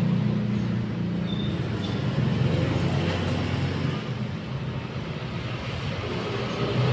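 Carpet spinner drum machine running, a steady low mechanical hum that eases off in level over the first few seconds and then holds steady.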